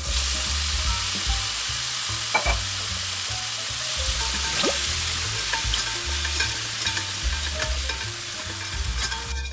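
Sausages sizzling steadily in a hot frying pan.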